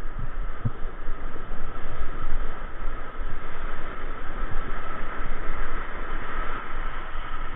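Ocean surf washing over a shallow reef, with waves breaking and wind rumbling on the microphone; the wash swells a little about six seconds in.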